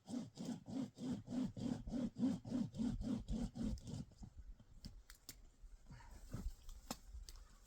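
Pocket saw wrapped around a tree branch and pulled back and forth by its handles, rasping through the wood at about four strokes a second, stopping about four seconds in. A few faint snaps and clicks follow.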